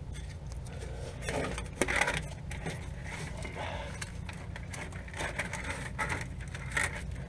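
Light clicks, scrapes and rattles of hands working a spreader wiring harness and its plugs under a truck frame, loudest about two seconds in, over a steady low hum.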